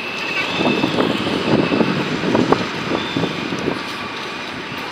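City street traffic noise, with a vehicle passing that swells louder through the middle and fades near the end.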